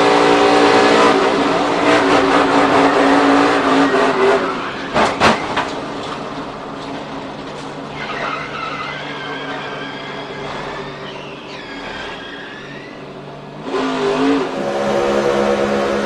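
Onboard sound of a NASCAR racer's V8 engine running hard, then a couple of sharp impacts about five seconds in as it crashes. Tyres then squeal in long wavering tones while it slides, and near the end another NASCAR V8 is heard running at speed.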